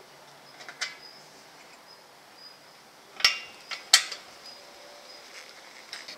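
Hex key doing the final tightening of a stainless muffler cutter's clamp bolts, with a few sharp metallic clicks; the two loudest come about three and four seconds in.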